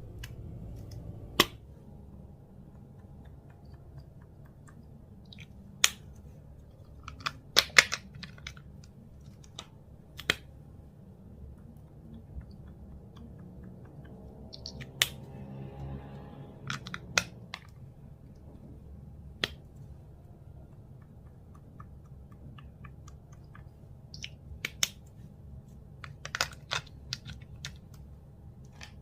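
Clear slime being worked by hand, giving scattered sharp sticky pops and clicks, some single and some in quick little clusters.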